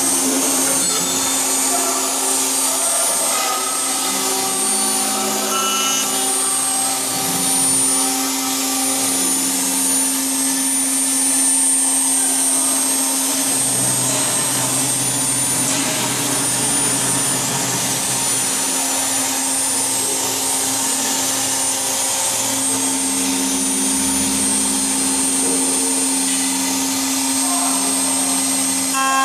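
CNC drilling and milling machine for aluminium profiles at work: its spindle runs with a steady whine over a rushing noise while it machines the profile. Lower motor tones come and go every few seconds as the head moves.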